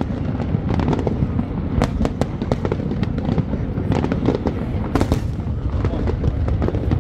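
Aerial fireworks bursting in quick succession: a steady low rumble under many sharp cracks and bangs at irregular intervals.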